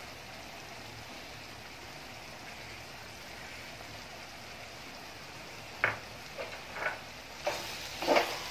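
Curry gravy simmering in an aluminium pot with a soft, steady sizzle. From about six seconds in come a few short knocks against the pot, and the sizzling grows louder near the end.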